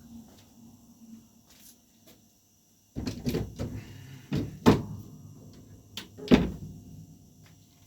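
Knocks and bumps of something solid being handled, starting about three seconds in, with two sharp knocks in the second half, much like a wooden panel or cupboard door being moved and set in place.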